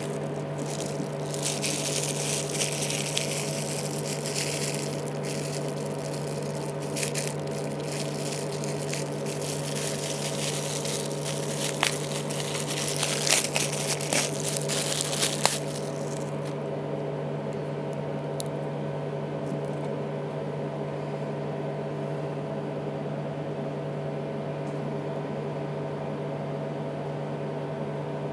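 Close-up scraping and rustling with a few sharp clicks, typical of small parts and tools being handled while an iPhone is taken apart, over a steady electrical hum. The handling noise stops about halfway through, leaving only the hum.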